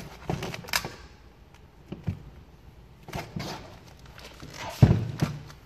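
Avery gloss black vinyl wrap film rustling and crinkling in short scrapes as it is worked by hand and squeegee over a plastic car grille, with a dull knock about five seconds in.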